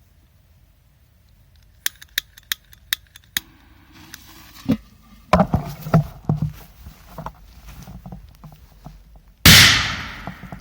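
P100 firecracker exploding with a kettle: one loud sharp blast near the end, followed by a short fading tail. Before it come a few sharp clicks and some scattered knocks and shuffling.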